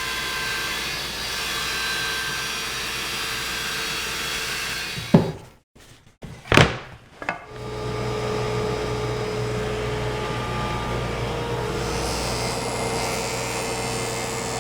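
A power saw ripping a solid cherry board, running steadily for about five seconds. Then two or three sharp knocks of wood, and a woodworking machine runs steadily again to the end.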